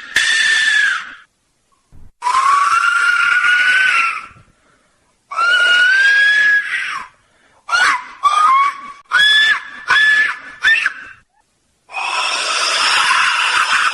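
Replica ancient Mexican noise-generator whistles, death-whistle type, blown in scream-like blasts: a rushing hiss with a shrill whistling tone in it. Three long blasts of about two seconds each, then a run of short sharp ones, then a longer blast near the end.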